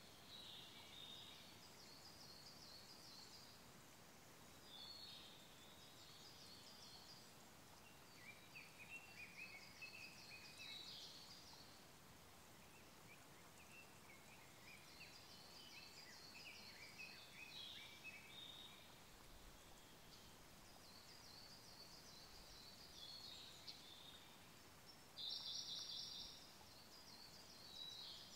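Small forest songbirds singing in repeated phrases of rapid, high trilled notes, the loudest phrase near the end, over the faint steady rush of a small stream.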